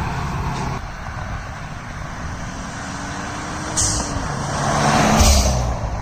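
A Subaru WRX turbocharged 2.0-litre flat-four is blipped and released. Two short hissing pshh sounds, about four seconds in and again near the end, are the TurboXS Hybrid blow-off valve venting boost as the throttle closes.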